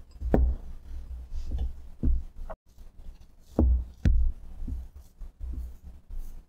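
A silicone spatula mashing and scraping stiff butter-sugar-flour dough against the sides of a glass mixing bowl, with irregular low knocks and thumps as the bowl shifts on the wooden table. The loudest knocks come just under half a second in and twice a little past the middle.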